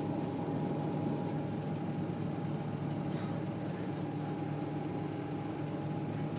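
City bus engine running steadily, a low drone with a steady humming tone above it and no revving, heard from inside the bus.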